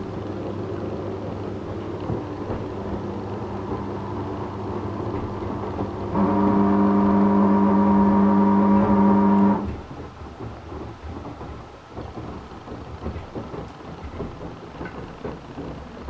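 Beko WYAW 714831 LS washing machine running with a steady hum. About six seconds in, a much louder droning hum starts, holds for about three and a half seconds and cuts off suddenly. Irregular rumbling and sloshing follow. The uploader wonders whether the loud noise announces a failing motor or drain pump.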